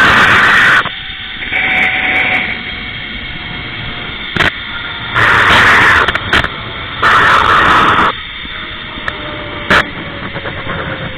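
Wind rushing over the camera microphone in loud gusts during a zip-line ride, with the trolley's pulley running along the steel cable as a faint whine that slowly falls in pitch as the ride slows. A few sharp knocks come in between.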